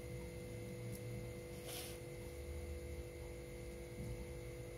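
Steady electrical hum with a few fixed tones, broken about two seconds in by a brief crinkle of plastic bubble wrap being handled.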